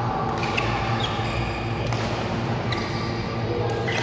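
Badminton rally: several sharp racket strikes on the shuttlecock and short squeaks of shoes on the court floor, over a steady low hum and the echoing noise of a large sports hall.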